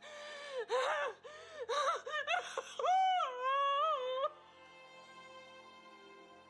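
A woman sobbing and wailing, with gasping, breaking cries, over soft sustained background music. The crying stops about four seconds in, leaving only the quieter music.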